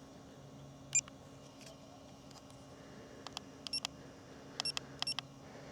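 Short electronic beeps and clicks from handheld gear as buttons are pressed: one click about a second in, then several quick high beeps, mostly in pairs, from about three seconds in. A faint steady low hum sits underneath.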